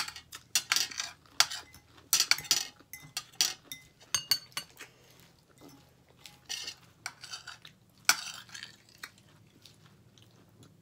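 Metal fork clinking and scraping against a ceramic bowl as lettuce salad is picked up, a string of irregular short clicks and scrapes.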